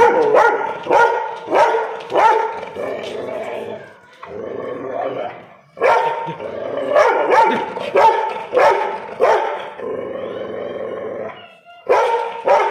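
A Rottweiler barking in runs of short, loud barks, about two a second, with longer drawn-out sounds between the runs.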